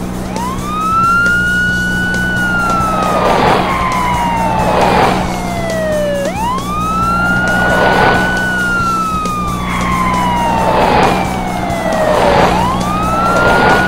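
Cartoon police car siren: a slow wail that rises quickly and then falls gradually over about six seconds, sounding three times. Under it run a steady low hum and background music.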